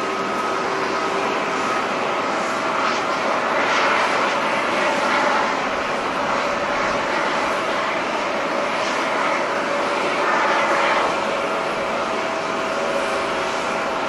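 Jet engines of a British Airways Boeing 787 (Rolls-Royce Trent 1000 turbofans) at takeoff thrust as the airliner climbs out: a steady rushing jet noise with a couple of held tones in it, swelling slightly about four seconds in and again near eleven seconds.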